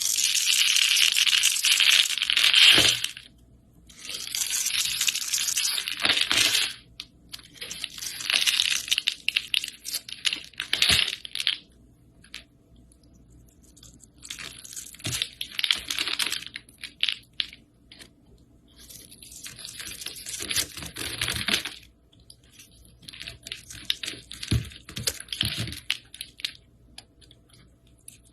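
Slime being squished and worked, giving off dense crackling and popping in about six bursts of a few seconds each, with short pauses between them.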